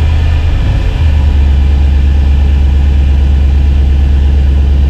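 Just-started 5.3-liter LS V8 idling steadily on its first run after a fresh oil fill, while oil pressure is being checked. Its low note settles slightly about a second in.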